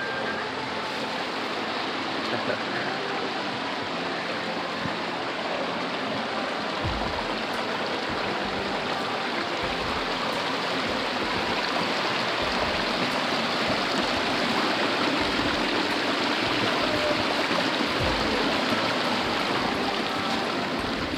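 Small mountain stream rushing steadily over rocks, with a few brief low bumps on the microphone.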